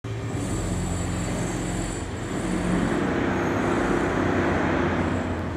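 A steady low rumble with a hum, with no clear starts or stops.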